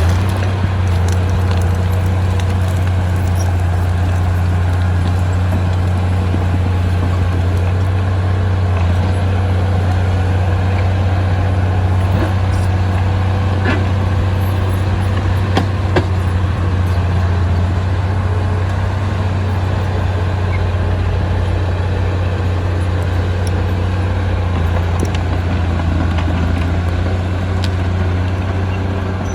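Heavy diesel earthmoving machinery running steadily, a deep, even engine note with a few short metallic clanks about 14 and 16 seconds in.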